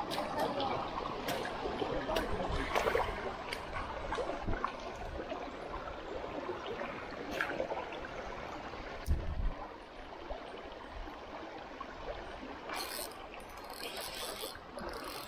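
Shallow creek water rippling and trickling steadily over a rocky riffle, with a few faint clicks and a dull bump about nine seconds in.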